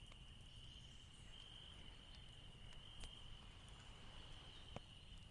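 Near silence: room tone with a faint, steady high-pitched whine and a few faint clicks.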